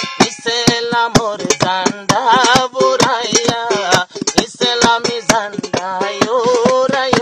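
Rohingya tarana: a voice singing a melody with wavering vibrato over a fast, even percussive beat.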